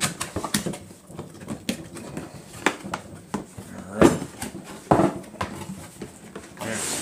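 Cardboard box being opened and handled on a wooden table: a string of clicks and knocks, with two louder thumps about four and five seconds in as the box is tipped over, then a scraping rustle near the end as the inner box slides out.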